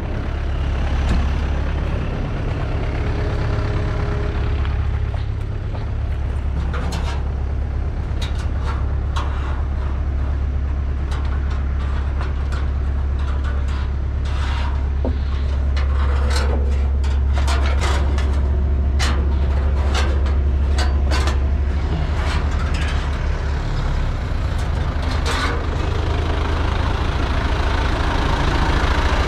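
Kubota tractor's diesel engine running steadily at a constant speed, with a scatter of sharp clicks and knocks through the middle.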